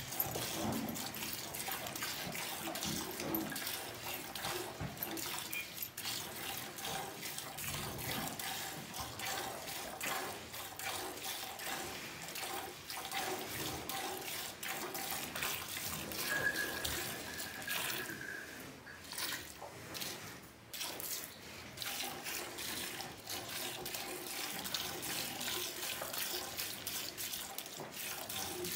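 Milk squirting in quick streams from a cow's teats into a steel pail partly full of foamy milk, as the cow is milked by hand.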